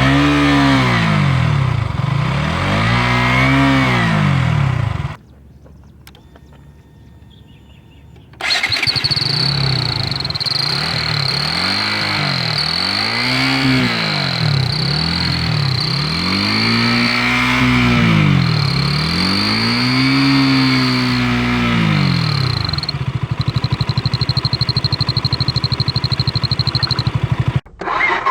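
KTM Duke 200 single-cylinder engine being revved in repeated blips, each rising and falling in pitch. After a brief quieter stretch a high, steady whistle from a turbo whistle fitted to the exhaust sounds over the revs, and near the end the engine settles to a steady idle with the whistle still on.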